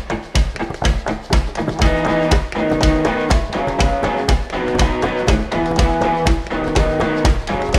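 Band music: a drum kit plays a steady beat, and sustained pitched instrument notes join in about two seconds in.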